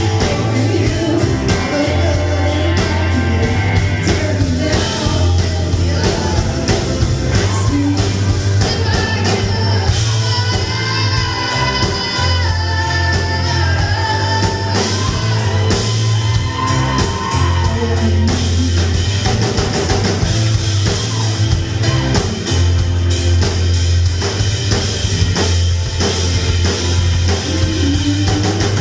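Live band playing a rock song through a PA, recorded from the crowd: a woman singing lead into a microphone over drums and electric guitar.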